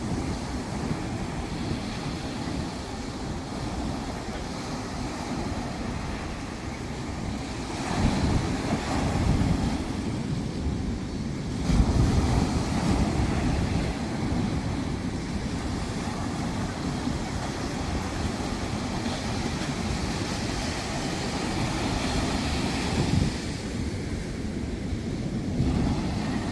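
Sea waves washing onto a sandy beach, with wind buffeting the microphone as a low rumble. The surf swells louder about 8 and 12 seconds in.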